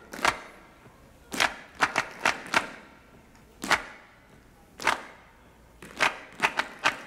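A series of about a dozen sharp, short percussive hits like claps or knocks, irregularly spaced, some single and some in quick runs of two to four.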